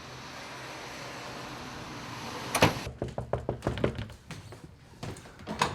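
A door being opened: a sharp thump about two and a half seconds in, then an irregular string of latch and handle clicks and knocks.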